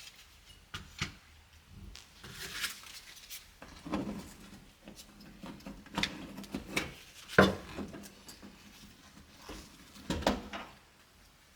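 Hands working on a van's sliding-door trim and clips: scattered clicks, taps and short rustles of plastic parts being handled, with the sharpest knock about seven seconds in.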